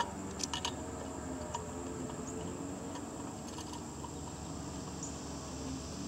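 A few light clicks as brass refrigerant hose fittings are handled on a manifold gauge set, within the first second or so, then a steady faint outdoor hiss.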